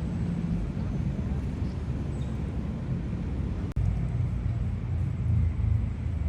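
Steady low outdoor rumble of park ambience, broken by an abrupt cut about four seconds in, after which the rumble is a little louder.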